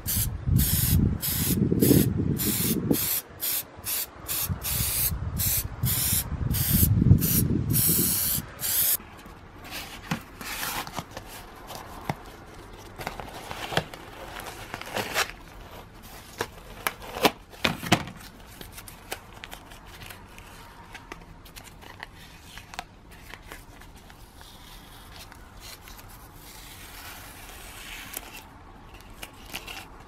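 Aerosol spray-paint can spraying in a rapid series of short bursts for about the first nine seconds. After that, quieter crinkling and crackling of masking tape being peeled off the painted metal plates, with a few sharp clicks.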